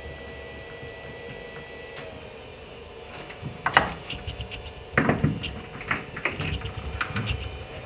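Hand work on a fuel pump sending unit: a thin steady hum for the first two seconds, then from about three and a half seconds in an irregular run of clicks, clinks and knocks as metal parts and tools are handled, the loudest about halfway through.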